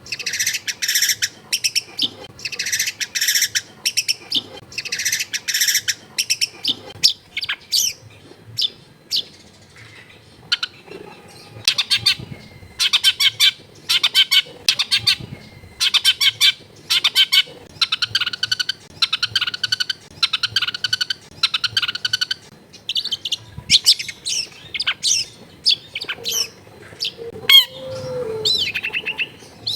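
Long-tailed shrike (cendet) singing a fast, varied song of short, harsh chattering notes in rapid runs, mixing in mimicked calls of other birds. Near the end, one note slides down in pitch.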